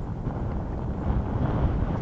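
Wind buffeting the microphone: an uneven low rumble of gusts, a little stronger in the second half.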